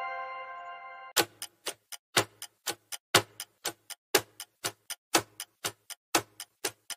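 A bell-like chime fades away over the first second. Then ticking starts, about four ticks a second alternating louder and softer, a clock-style countdown timer sound effect that runs while a quiz question waits for its answer.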